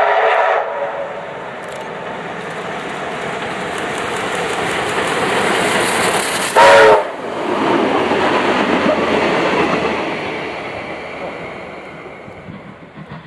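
Steam locomotive D3 639, a Victorian Railways D3-class 4-6-0, sounding its whistle, which cuts off within the first second. The running noise of the engine and train builds as it comes closer, a second short whistle blast about six and a half seconds in is the loudest sound, and the running noise then fades as the train passes.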